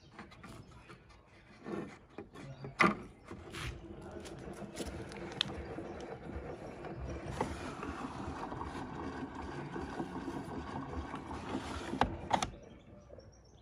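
Plastic clicks and knocks as the washing machine's facia and detergent drawer are handled. Then a steady running noise lasts about five seconds and is cut off by two sharp clicks.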